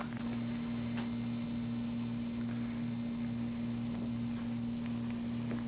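Steady electrical hum, with a faint click about a second in.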